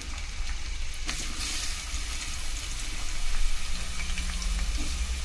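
Sliced onions sizzling and crackling in hot oil in a steel pot, a steady frying hiss that grows louder about a second in, over a steady low hum.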